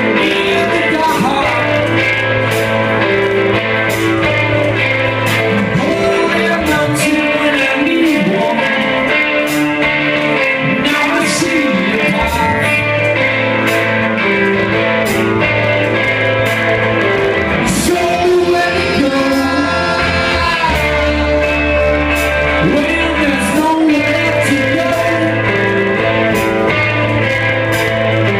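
Live rock band playing loud: a singer's lead vocal over electric guitars, a bass line and a steady drum beat.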